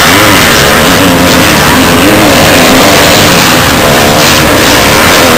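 Several motocross bikes racing close by, their engines revving up and down again and again as the riders accelerate through a turn. The sound is loud and continuous, with several engines overlapping.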